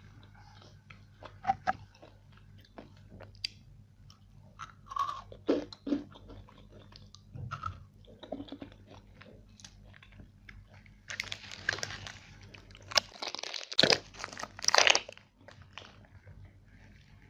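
Biting and chewing of crunchy food: scattered small crunches and mouth sounds, then a dense run of loud crunching for a few seconds in the last third.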